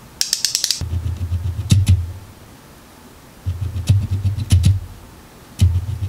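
Rapid dabbing of a foundation tube's sponge-tip applicator against the cheek, close to the microphone, in three bursts of a second or so each: a low rubbing thud laced with quick ticks. It opens with a brief run of sharp clicks.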